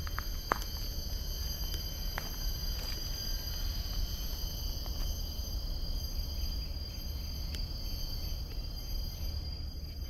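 Forest insects droning steadily, several high-pitched tones held at once, over a low rumble. A few light clicks sound in the first couple of seconds.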